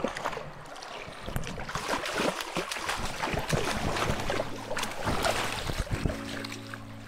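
Water splashing and sloshing as a hooked trout thrashes at the surface in shallow river water, then is scooped into a landing net near the end.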